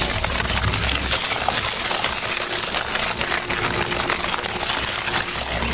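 Industrial shredder running under load: a dense, steady grinding rush with a low hum beneath and many small sharp cracks of material breaking.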